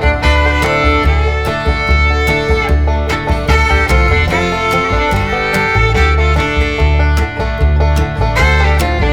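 Background music: an upbeat bluegrass/country tune with fiddle, guitar and banjo over a steady bass beat.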